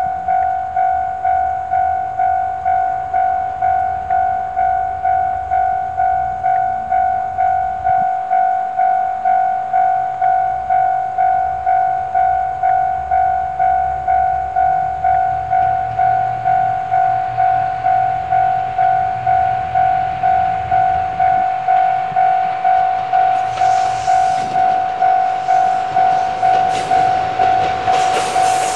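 Railway level-crossing warning bell ringing in steady, evenly spaced dings, about one and a half a second, over the low rumble of an approaching diesel railcar train. In the last few seconds the train's running noise and wheel clicks grow loud as it draws near.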